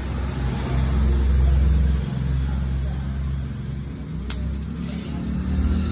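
A steady low rumble, loudest about one to two seconds in and easing after, with one sharp click about four seconds in as drag parts are fitted back onto a baitcasting reel's handle shaft.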